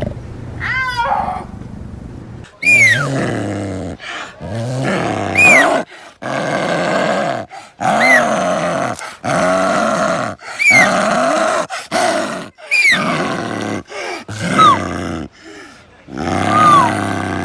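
Big cat vocalizing in a run of separate loud calls, one every second or two. Each call opens with a short high cry that falls quickly in pitch, then carries on as a rougher, steadier yowl.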